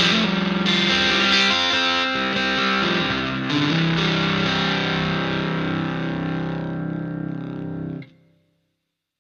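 Electric guitar played through a Boss FZ-5 fuzz pedal: heavily distorted notes and chords, then a final chord held and ringing out for about four seconds before cutting off sharply.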